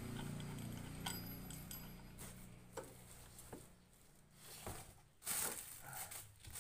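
Light clicks and taps from handling the parts of a rechargeable solar fan, with a short rustle about five seconds in. A low steady hum fades out during the first two seconds.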